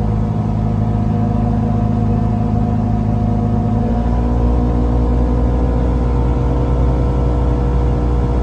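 Engine and drivetrain drone of a 2022 Polaris Ranger Northstar 1000 side-by-side, with its 999 cc ProStar twin-cylinder engine, heard from inside the sealed cab while driving on pavement on stock tyres. The drone is steady, and its pitch shifts about four seconds in as the low rumble gets stronger.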